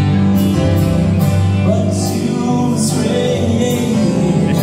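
Live band rehearsing on stage, with guitars, keyboard and drums playing and a voice singing, heard across a large hall.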